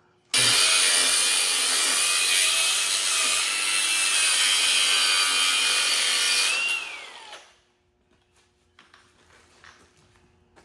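A power tool runs for about seven seconds with a steady high whine, most likely cutting the steel tubing for the roll cage's kicker braces. Near the end the whine slides down in pitch as the motor spins down.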